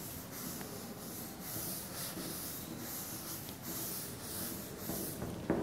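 A chalkboard duster wiping chalk off a chalkboard in repeated back-and-forth swishes, about two or three strokes a second, with a light knock near the end.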